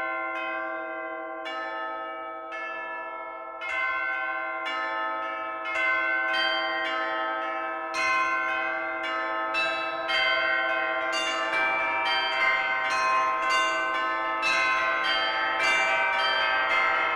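Church bells ringing in a celebratory peal. Single strikes come about every second and a half at first, then more bells join and the ringing builds into a dense, overlapping peal.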